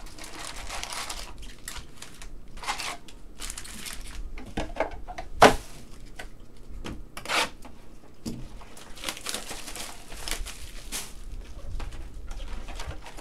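Trading card boxes and wrapped packs being handled and opened by hand: irregular rustling and crinkling of cardboard and wrapper, with scattered taps and one sharp snap about five and a half seconds in.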